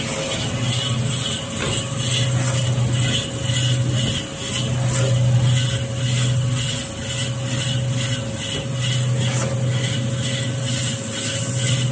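Manual kitchen-towel paper-log cutting machine running as a paper log is fed through its vertical blade and cut into rolls. A steady motor hum with a high whine, and a lower drone that comes and goes every second or two.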